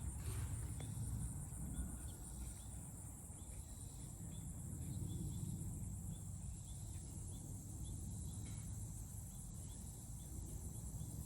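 Crickets and other insects chirping steadily: an even high-pitched insect drone with short repeated chirps, over a low rumble.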